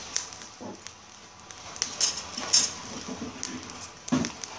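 Light clinks of metal tongs and utensils against a wire grill rack, with two sharper clinks about two seconds in and a dull knock near the end, over a steady hiss.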